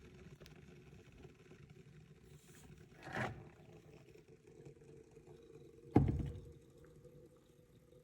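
Cuisinart cordless electric kettle heating water with a low, steady rumble and hiss, swelling briefly about three seconds in; a sharp click about six seconds in, after which the rumble dies down.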